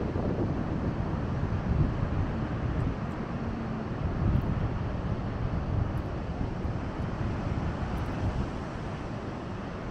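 Wind buffeting the microphone: a steady, uneven low rush.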